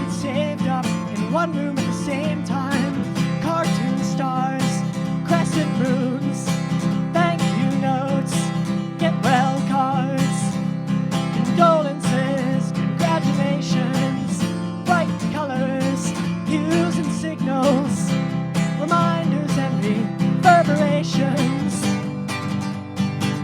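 Acoustic guitar strummed steadily through a chord progression, with a wavering melody line above the chords.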